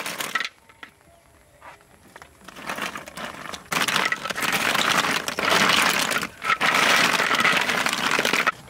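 Crinkling and rustling as something crinkly is handled. Quiet for the first couple of seconds, then two long stretches of it from about four seconds in, with a brief break between them.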